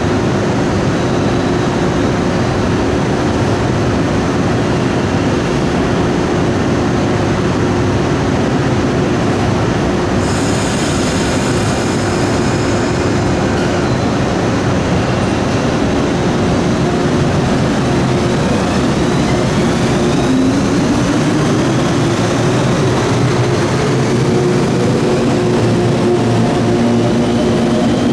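JR 115 series electric train pulling away from a station: steady rumbling running noise with a constant hum, a brief shrill high squeal about ten seconds in, and from about two-thirds of the way through a whine from the traction motors rising in pitch as it picks up speed.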